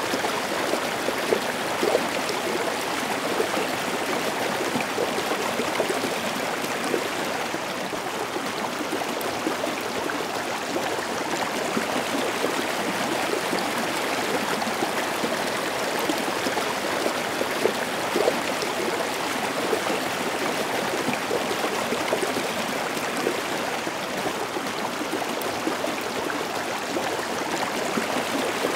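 Small rocky stream cascading over boulders in a series of short falls: a steady rush of water.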